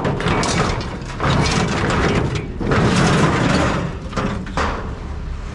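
Scrap metal pieces clattering and scraping against each other as they are pulled off a loaded trailer by hand, in several bouts of a second or so, over a steady low rumble.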